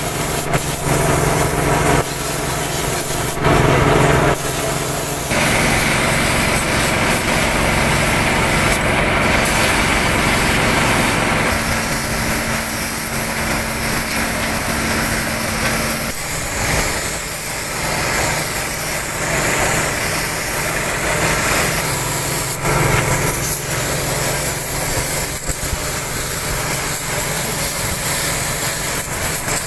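Compressed-air paint spray gun hissing steadily as it sprays paint, over a steady motor drone; the sound shifts abruptly several times.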